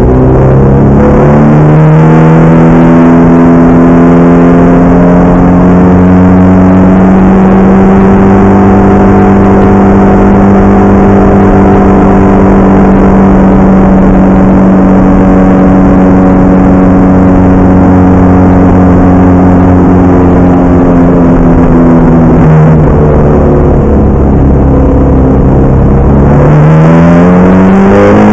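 Ferrari F430 GT's V8 engine at full throttle, heard from inside the cockpit. The note climbs as the car accelerates, then holds high and nearly steady for a long stretch at speed. About 22 seconds in the pitch drops, and near the end it climbs steeply again under acceleration.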